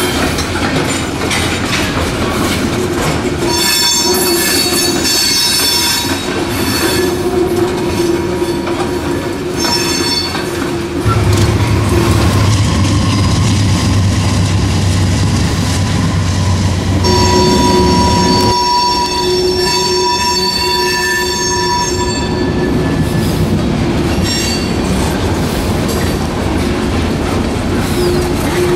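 Freight train of tank cars rolling past close by, its wheels squealing in high, sustained tones over a steady clatter on the rails. About eleven seconds in a deep rumble joins in for some seven seconds as diesel locomotives pass.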